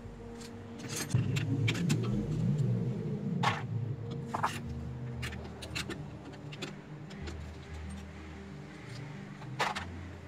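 A few sharp metallic clicks as a screwdriver works at the shoes and springs of a 1996 Mitsubishi Lancer's rear drum brake, over steady background music.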